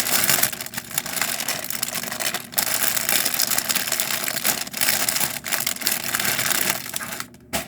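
Plastic bag crinkling and rustling close to the microphone as it is opened and the kit pieces are pulled out, in a long run of crackly noise with a few brief pauses that stops near the end.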